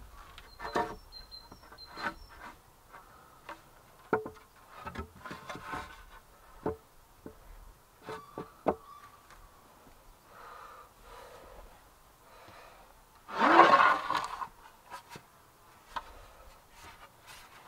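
Wooden boards knocking and clattering as they are set down and shifted across log supports, with a louder scraping rub of wood on wood about two-thirds of the way through.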